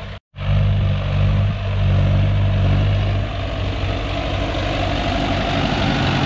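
Tractor diesel engine running, a steady low hum after a brief dropout at the very start; about three seconds in it turns rougher and noisier.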